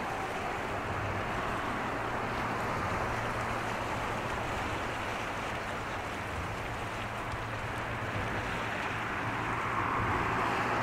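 Steady rush of wind and water at the shore, with a low steady hum underneath; it swells slightly near the end.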